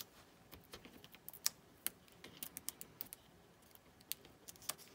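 Faint, irregular small clicks and taps of hands working with foam adhesive dimensionals and cardstock, peeling the dots off their sheet and pressing them onto a card panel.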